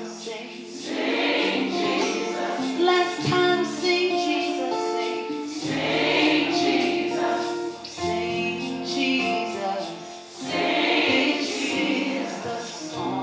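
Gospel choir singing with instrumental accompaniment, sustained held chords.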